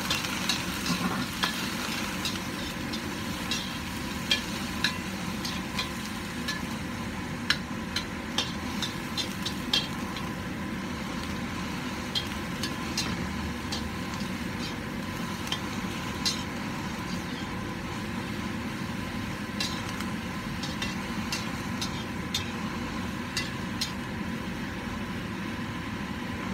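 Vegetables and mushrooms sizzling in a hot wok, with a spatula scraping and clinking against the pan as they are stir-fried. The clinks come in scattered runs, busiest in the first ten seconds, over a steady hiss.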